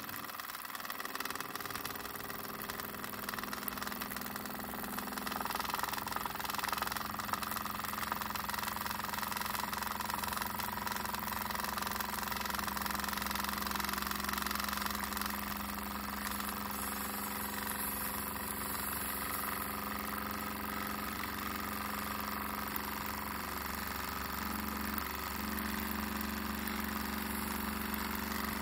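SEL 1550 Major model steam engine running steadily in steam, the small cylinder driving its flywheel at an even speed, with a constant low hum.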